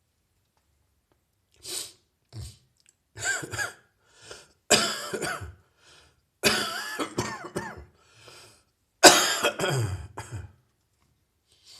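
A person coughing in a series of heavy, chesty bouts left by a chest cold, starting after a short pause and getting longer and louder, with the strongest fit near the end.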